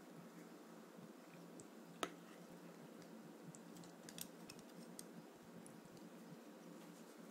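Near silence: room tone with a steady low hum and a few faint clicks, one sharper click about two seconds in and a short cluster of clicks around four seconds.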